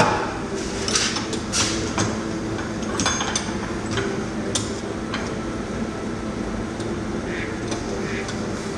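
Scattered metal clinks and taps as the steel press-piece tool is handled for removal from the rear trailing arm bush, one clink ringing briefly about three seconds in, over a steady workshop hum.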